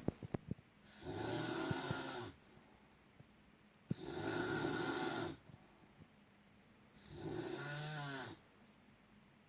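Loud snoring from a sleeper: three long snores, each about a second and a half, spaced roughly three seconds apart, with quiet breathing between. A few short clicks sound right at the start.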